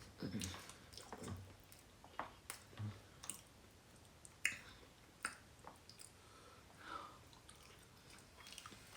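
Quiet chewing and soft wet mouth smacks of someone eating fufu with oxtail, with scattered short clicks.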